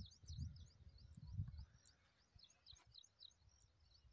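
Small birds chirping, many short high calls repeating throughout, faint. A low rumble of wind or handling on the microphone in the first second and a half.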